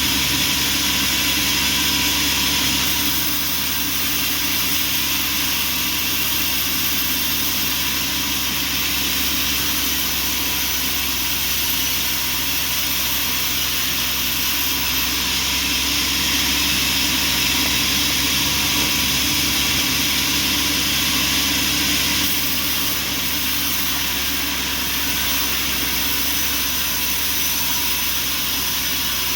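Bandsaw sawmill running: a steady mechanical drone with many fixed tones under a strong high hiss, dipping slightly in level about three seconds in.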